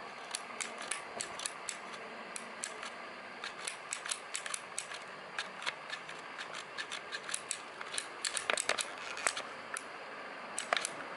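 The black plastic trigger lever of a Black & Decker 14-inch corded string trimmer, with its housing open, being pressed and released by hand: a string of irregular light clicks, a few a second. The lever sometimes doesn't travel all the way to work the switch, which the owner puts down to loose screws that need tightening.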